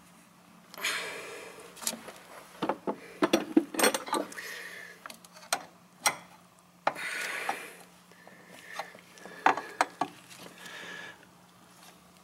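Irregular clinks and knocks of a metal wrench and hand tools being picked up and handled, with a few short stretches of rustling between them. A faint steady hum runs underneath.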